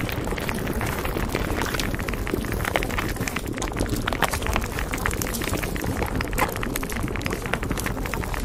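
A steady bed of bubbling, gurgling water sound, dense with small pops and crackles.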